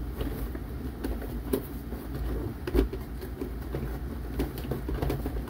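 Toy packaging being handled as a toy is worked free of its box: scattered clicks and rustles of plastic and cardboard, over a steady low hum.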